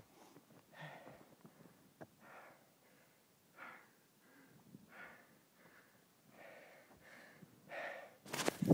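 A man breathing hard from exertion, with heavy breaths about every second and a half. Near the end there is a loud rustling bump of handling right at the microphone.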